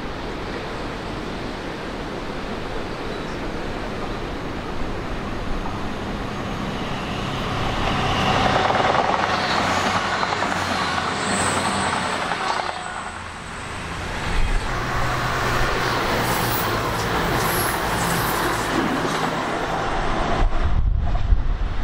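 Train passing on the line, its running noise swelling about seven seconds in, with a low, steady engine drone underneath from about fourteen seconds in.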